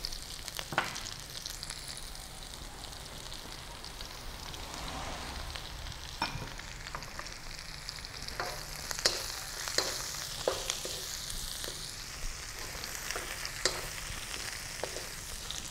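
Potatoes, peppers and oyster mushrooms sizzling steadily in hot olive oil in a wok. From about six seconds in come a series of sharp clicks and knocks as a wooden spoon stirs against the wok.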